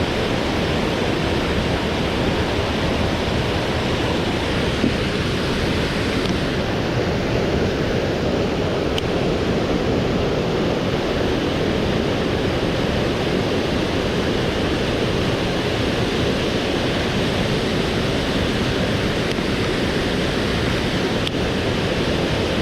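Steady rushing of a swollen mountain stream, high with rainwater, with a couple of faint ticks.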